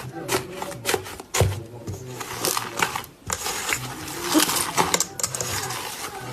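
Slime being squished and poked, giving quick sticky pops and crackles, thicker and faster in the second half.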